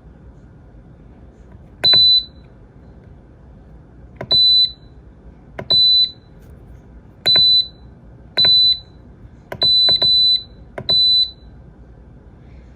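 Castle Serenity pellet stove's control panel beeping as its buttons are pressed: about eight short, high-pitched beeps at irregular intervals, each starting with the click of a key, two of them close together near the end.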